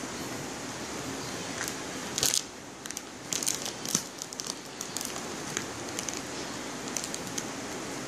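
Crinkling and rustling of a wet-wipe packet and tissues being handled, in scattered short crackles, loudest about two seconds in and again from about three to five seconds in.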